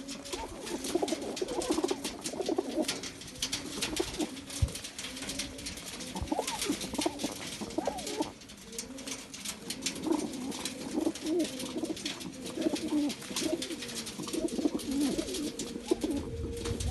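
Punjabi pigeons cooing over and over, several low warbling coos overlapping, with many light clicks and taps mixed in.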